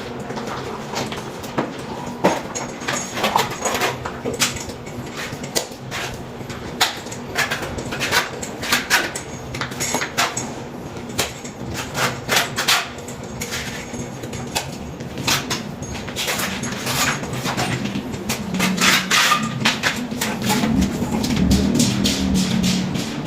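Irregular sharp knocks and clicks, several close together at times, over a steady low hum. A louder low rumble builds in the last few seconds.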